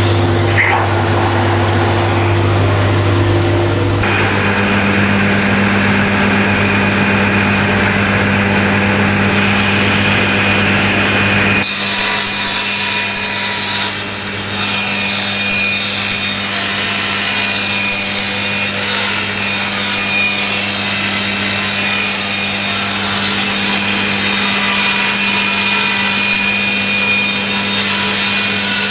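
Table saw running with a steady motor hum, then cutting through wood from about twelve seconds in, the blade noise continuous with a brief dip a couple of seconds after the cut begins.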